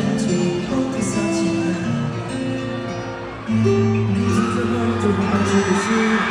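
Live K-pop concert music over arena speakers: a guitar-led backing with sung melody, which gets louder about three and a half seconds in.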